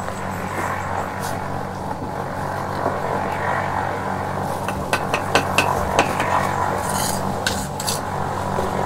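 Bricklayer's steel trowel scraping mortar and knocking on bricks along the top of a brick wall, with a quick run of sharp taps about five to six seconds in and a few more near the end. A steady low hum runs underneath.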